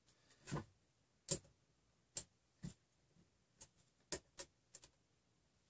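Irregular light clicks and taps, about a dozen, from a printed-plastic Greg's extruder with its stepper motor and small metal hardware being handled and adjusted by hand.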